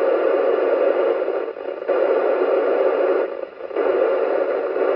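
FM receiver hiss from a Yaesu FT-991A transceiver's speaker with the squelch open, tuned to the ISS downlink near 437.800 MHz with no voice coming through. The steady rushing noise dips briefly twice, about a second and a half in and again near three and a half seconds.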